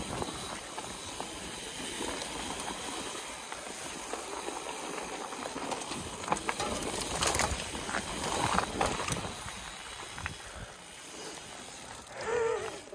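Mountain bike rolling fast down a dirt trail covered in dry leaves: a steady hiss of the tyres over leaves and dirt, with scattered clicks and rattles from bumps.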